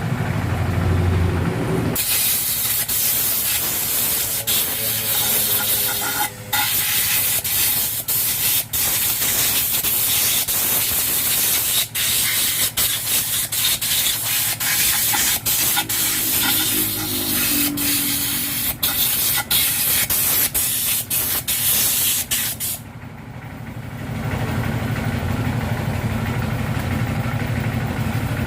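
Loud hiss of a pressurised jet blowing from a nozzle, starting about two seconds in and running for about twenty seconds with many brief breaks, then stopping suddenly. An engine idles before it starts and again after it stops.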